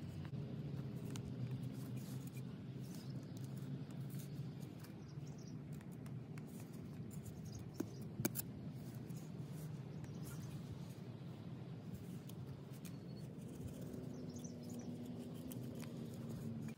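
A knife and a pointed wooden stick scraping and digging into clay soil: many small scratches and clicks, with two sharper knocks a little past the middle, over a low steady hum.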